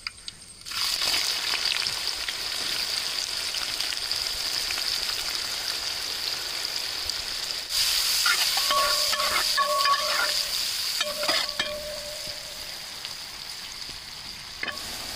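Sliced onions dropped into hot coconut oil in a large metal pan, starting to sizzle about a second in and frying with a steady hiss while a metal spatula stirs them; the sizzle gets louder a little past halfway.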